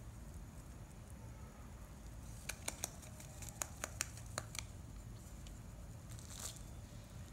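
Rabbit biting a cardboard toilet-roll tube: about eight sharp, crisp snaps over two seconds, beginning about two and a half seconds in, then one softer crunch near the end.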